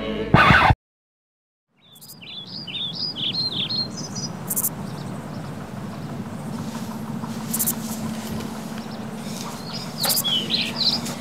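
Music cuts off suddenly, and after a second of silence birds chirp in a run of quick high calls over a steady low hum and background noise. A few sharp clicks follow, then more chirping near the end.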